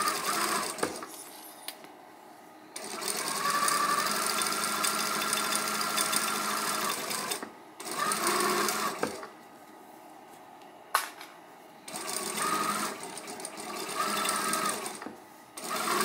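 Juki sewing machine stitching a seam through cotton fabric in starts and stops: one long run of about four and a half seconds, then several shorter bursts with pauses between. A single sharp click comes about eleven seconds in.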